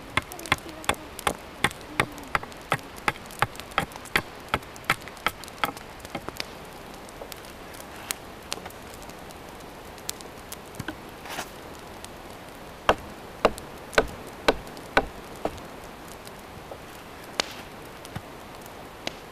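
Hatchet chopping a wooden bow stave in quick, light, even strokes, about two or three a second, for the first six seconds. Later come a few scattered knocks, then five louder wooden knocks about half a second apart, as a knife is batoned into a log to split it.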